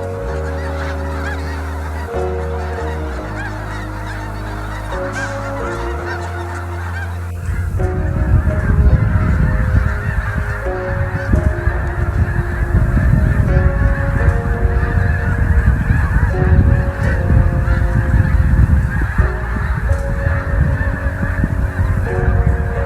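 A large flock of geese honking, a dense, continuous clamour of many birds calling at once that grows fuller after the first several seconds.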